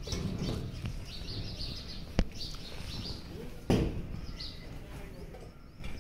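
Small birds chirping on and off, with a sharp click a couple of seconds in and a heavier thump shortly after.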